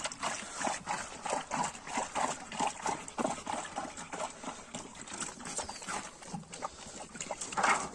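Georgian shepherd dog lapping water from a steel bowl, a quick series of wet laps at about three a second. A louder brief noise comes near the end.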